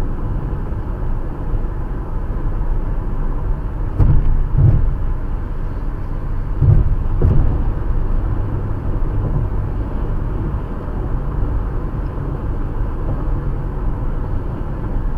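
Cabin road noise of a Toyota RAV4 driving at highway speed, a steady low rumble, with a few short thumps about four and seven seconds in.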